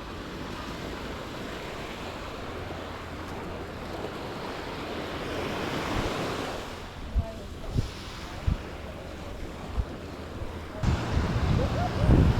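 Sea surf washing onto a beach, one wave swelling about midway. Wind buffets the microphone with a few short low thumps after that and a heavier rumble in the last second or so.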